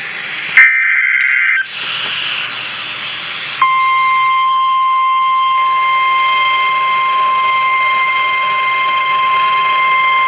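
Emergency Alert System broadcast. A click and about a second of harsh, buzzing SAME digital header tones, then a couple of seconds of radio hiss. About three and a half seconds in, a single steady high alert tone begins: the NOAA Weather Radio 1050 Hz warning alarm, which signals a warning such as a flash flood warning.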